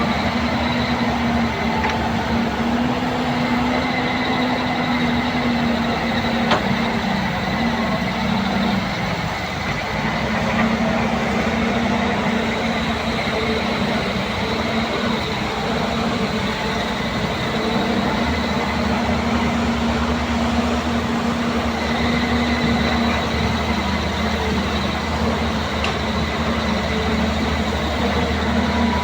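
Steady mechanical running noise with a constant hum, unchanging throughout.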